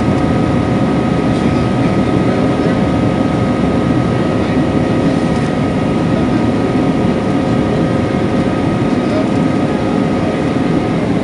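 Cabin noise inside a Boeing 737-700 climbing out after takeoff: the steady rush of air and the CFM56-7B engines running at climb power, with a few steady whining tones running above the roar.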